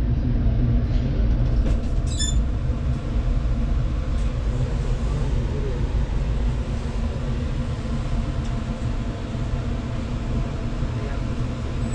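Passenger train running, heard from inside a sleeper coach: a steady low rumble of wheels on the track.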